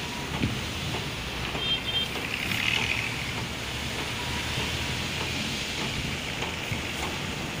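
Steady low mechanical rumble under a wind-like hiss, with two short high peeps about two seconds in.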